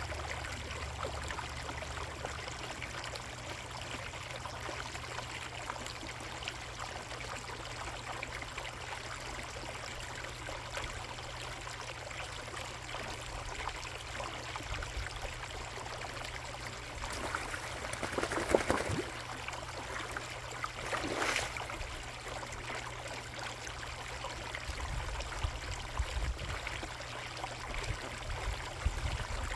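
Steady trickling and running of water in a koi pond. About two-thirds of the way through, two short louder noises rise above it, a second or two apart.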